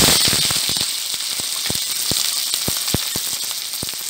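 Freshly added sliced onions sizzling in hot oil in a kadai over a high flame: a steady frying hiss with many scattered crackling pops, slowly easing in loudness.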